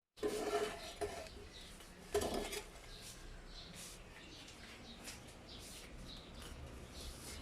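Faint clinking of dishes and utensils: two ringing clinks, near the start and about two seconds in, then lighter scattered taps.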